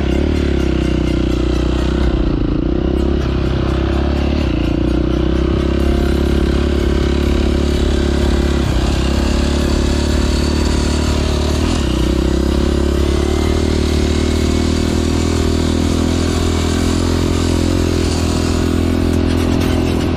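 Off-road vehicle engine running at fairly steady revs throughout, with some rattle.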